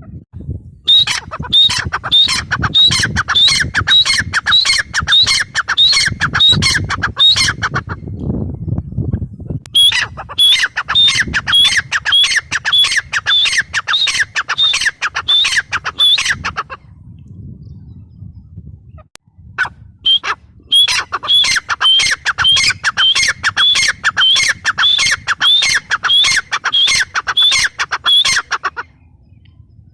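Grey francolin (teetar) calling: three long bouts of loud, harsh, rapidly repeated notes, about three a second, each bout lasting several seconds with short pauses between.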